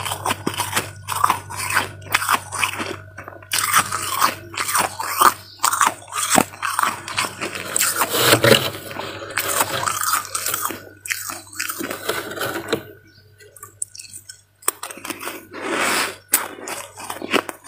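Close-up crunching of soft freezer frost being bitten and chewed: a rapid, irregular run of crisp crackles that breaks off for a moment about thirteen seconds in, then resumes.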